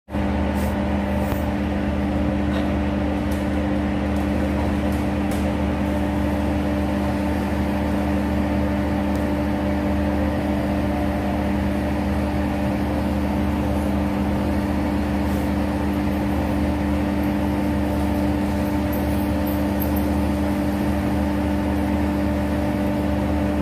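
Steady machine drone at one constant pitch, with a low hum beneath, typical of an idling engine.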